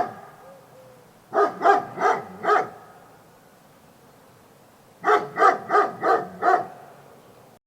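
A dog barking in two runs of quick barks, about four and then about five.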